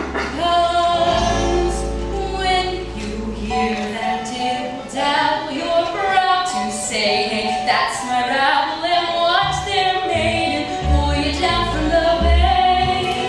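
A stage-musical song: female voices singing over instrumental accompaniment, with low bass notes coming in and out.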